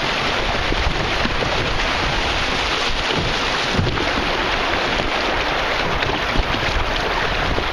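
Steady rushing of river water through a class 1 shoal, with wind buffeting the microphone.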